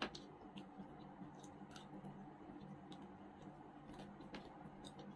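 Faint eating sounds: scattered, irregular small clicks and smacks of chewing and of fingers picking at chicken and rice on a plate, over a low steady hum.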